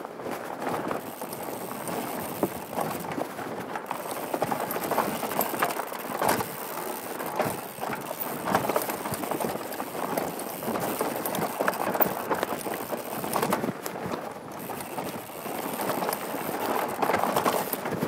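Mountain bike descending fast on rocky dirt singletrack, heard from a helmet-mounted GoPro: a continuous rushing noise with a dense, irregular clatter of tyres and bike over stones and bumps.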